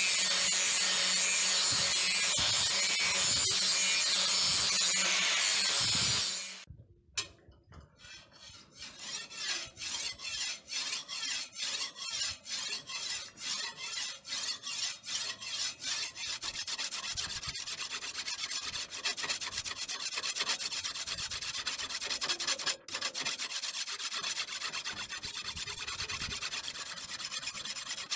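An angle grinder runs against the steel blade of a leaf-spring machete, a steady high hiss over a low motor hum, and stops about six seconds in. After a short lull, a hand file is drawn along the blade's edge in regular strokes, about two to three a second.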